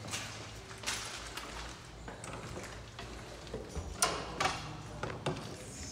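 Footsteps on a hard floor as a stairwell door is pushed open and walked through, with a sharp latch click about four seconds in, the loudest sound, over a steady low hum.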